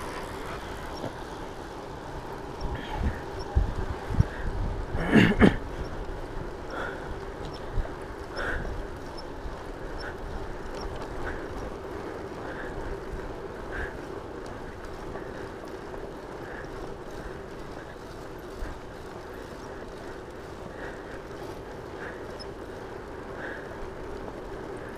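Riding noise from a Rad Rover electric bike on a paved trail: a steady motor-and-tyre hum under wind rush on the microphone, with a cluster of knocks and buffets a few seconds in.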